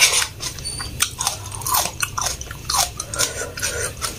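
A person chewing a mouthful of spicy instant noodles close to the microphone, with a quick run of wet mouth clicks and smacks.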